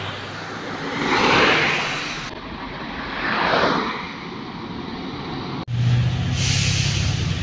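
Road traffic: two vehicles pass close by, each swelling and fading as it goes past. In the last couple of seconds a truck engine hums steadily.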